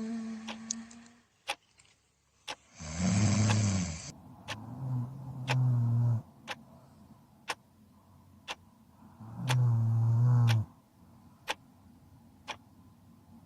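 Loud snoring: several long snores a few seconds apart, the one about three seconds in the loudest and raspiest. A clock ticks steadily about once a second underneath.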